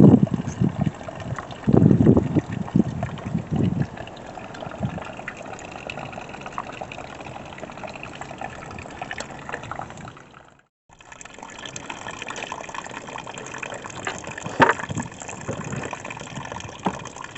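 Water gushing steadily into an above-ground pool, driven by the pool's filter pump, with a few louder splashes in the first few seconds. The sound breaks off briefly about two-thirds of the way through.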